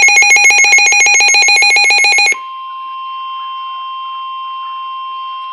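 Midland WR-400 weather radio's loud, fast-pulsing electronic alert alarm. About two seconds in it gives way to a steady single tone, the NOAA Weather Radio warning alarm tone that comes before a new severe thunderstorm warning.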